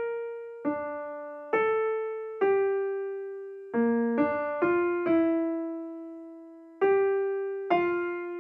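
Background music: a slow solo piano melody, mostly single notes, each struck and left to ring out and fade.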